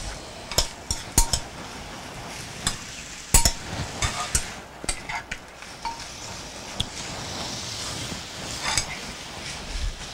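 Metal spoon clinking and scraping against a ceramic mixing bowl while scooping out a thick filling: irregular taps, a few of them sharp and ringing briefly.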